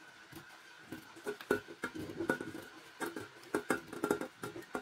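Chunks of watermelon dropped by hand into a pitcher, with a dozen or so soft, irregular knocks and plops as they land on the fruit already inside and touch the bowl's rim.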